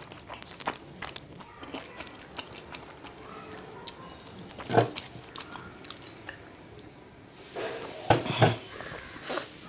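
Close-miked chewing of spicy instant noodles, with small wet mouth clicks and one louder bite about halfway through. Near the end, a steady hiss comes in, and a few loud gulps follow as a drink is swallowed from a glass.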